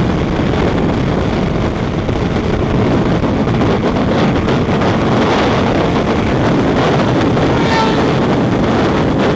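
Sportbike riding at steady highway speed, heard from the bike itself: a constant loud rush of wind mixed with engine and road noise, with no clear revving or gear changes.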